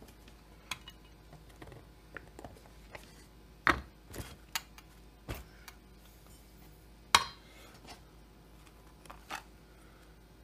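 Scattered clicks and knocks of chainsaw engine parts being handled and set down on a workbench, with two louder knocks, one about a third of the way in and one about two-thirds in.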